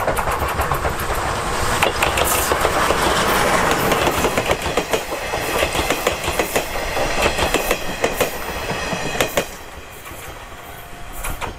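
Steam train of C11 325, a C11 tank locomotive, and its coaches passing close by: steady running noise with many sharp wheel clicks over rail joints, dropping away about nine and a half seconds in as the last coach goes by.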